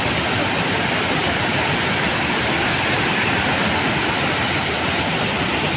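The Teesta River in flash flood after a cloudburst: fast, muddy floodwater rushing over the road and powerhouse grounds, a loud, steady rushing noise.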